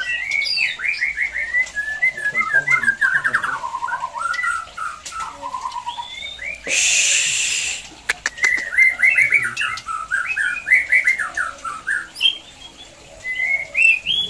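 White-rumped shamas (murai batu) in full song: quick, varied runs of whistles and chirps. About halfway through, a loud rush of noise lasting about a second cuts across the song, followed by a few sharp clicks.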